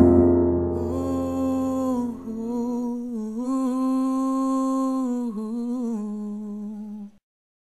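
A man humming wordless long held notes with a slight wobble in pitch, over a low backing sound that drops away about three seconds in, recorded through a webcam microphone. The sound cuts off abruptly near the end.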